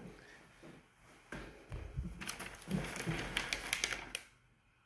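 Light tapping and clicking of small metal pressure-washer pump parts being handled. The clicks come in a dense, irregular run from about a second and a half in until about four seconds in.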